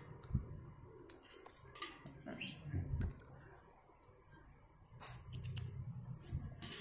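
A few light metallic clinks and clicks of small bicycle hub parts being handled, the sharpest about one and three seconds in with a brief high ring. A faint low hum comes in near the end.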